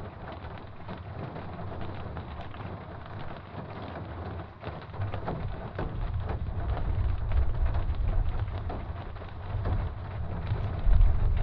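Steady rain with many small drop impacts, and a low thunder rumble that builds from about halfway through and grows louder near the end.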